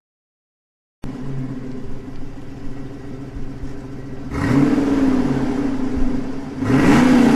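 Ford Mustang engine idling, starting about a second in, with the throttle blipped twice: the revs rise and fall back about midway and again near the end, louder on each blip.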